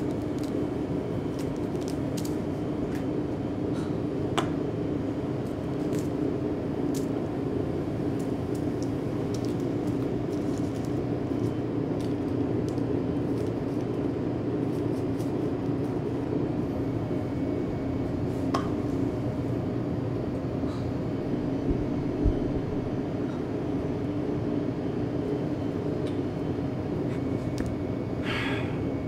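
Steady low hum of café room tone, with a few faint clicks and soft rubbing of a dish towel on a drinking glass; a brief scrape near the end.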